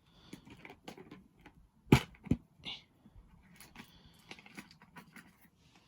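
Handling noise from a plastic transformable action figure being moved about: light rustles and small clicks, with one sharp knock about two seconds in and a second soon after.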